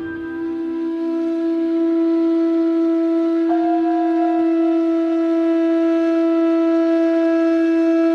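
Background music of long held notes: a steady low note, with a higher note joining about three and a half seconds in.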